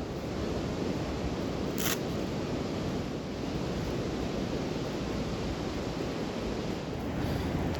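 Wood campfire burning: a steady low rushing with one sharp crackle about two seconds in.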